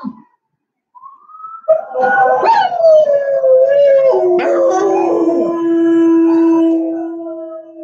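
Dogs howling: long, wavering howls that start about two seconds in and overlap one another, ending in one long steady howl held for about three seconds before it fades near the end.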